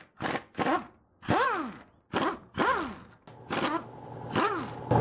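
Air impact wrench fired in about seven short trigger bursts, each a quick rise and fall in pitch, as it works to break loose the seized bolts holding the two halves of a brake caliper together.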